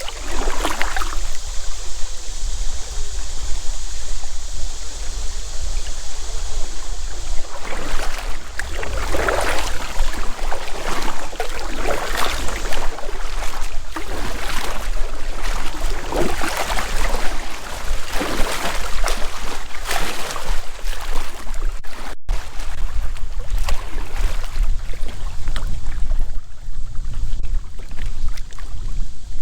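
Wind buffeting the microphone with a steady low rumble. From about eight seconds in to about twenty seconds in, paddle strokes swish in the water every second or two.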